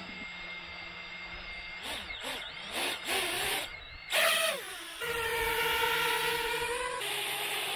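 HGLRC Sector 5 V2 FPV quadcopter's brushless motors whining: a few short throttle blips that rise and fall in pitch, then a steady whine held from about five seconds in.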